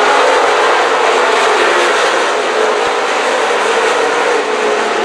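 A pack of dirt late model race cars with V8 engines running at speed around a dirt oval, blending into one loud, steady mass of engine noise with wavering pitch.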